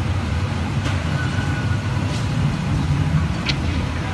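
Strong windstorm blowing, a steady low rumble, with a few faint clicks and a brief thin whistle about a second in.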